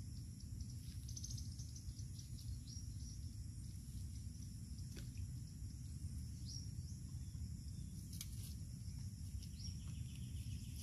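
Outdoor ambience: a steady high insect drone and a few short bird chirps over a low, even rumble.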